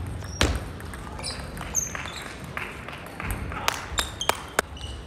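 Table tennis rally: a ping-pong ball clicking sharply off the table and rackets, one knock about half a second in, then four quick hits about a third of a second apart near the end. Short sneaker squeaks on the wooden gym floor come in between.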